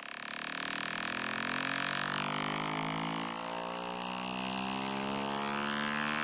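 An iPhone's loudspeaker playing a low buzzing cleaning tone from a speaker-cleaning app, rich in overtones and held steady throughout. The tone is meant to vibrate dust and dirt out of the speaker openings.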